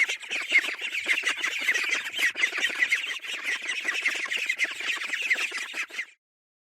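Ducklings peeping: a dense run of quick, high peeps that cuts off suddenly about six seconds in.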